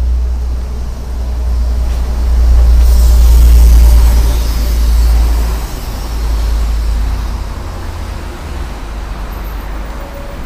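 Street traffic noise: a steady low rumble, with a vehicle passing close that swells and peaks about three to five seconds in, then fades.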